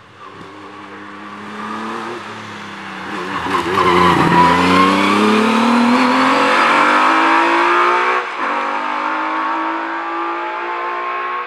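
Single-seater hill-climb racing car engine accelerating hard at full throttle, its pitch climbing repeatedly through the gears with short breaks between. It is loudest about four seconds in as the car passes close, then goes on strongly as the car pulls away up the hill.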